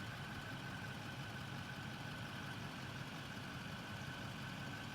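An engine idling steadily: a low, even hum with a thin high whine held above it.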